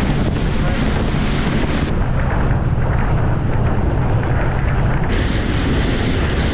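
A dive charter boat under way: a steady engine drone, with wind buffeting the microphone and water rushing along the hull.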